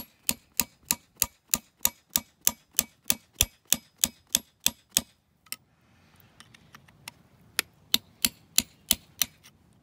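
Hammer tapping a punch against the thin steel outer casing of a Kubota front axle knuckle seal, sharp metallic taps about three a second, to break the casing and fold it inward so the seal can be removed. The tapping pauses for about two seconds midway, then carries on.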